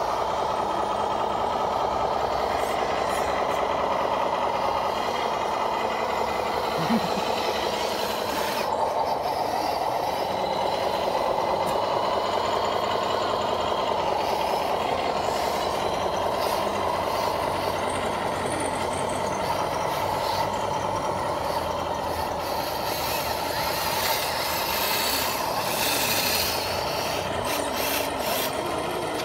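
Electric motors and geared drivetrains of RC scale crawlers whining steadily as they drive through mud, the pitch drifting up and down with the throttle. Scattered sharp clicks come in about a third of the way in and again near the end.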